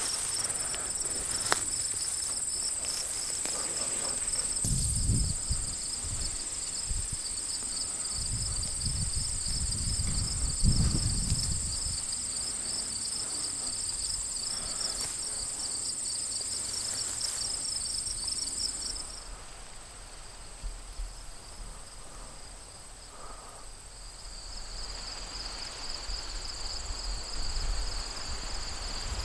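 Insects chirping steadily in high, pulsing tones over a field, with low rumbling noise between about five and eleven seconds in. The chirping drops out about two-thirds of the way through and comes back near the end.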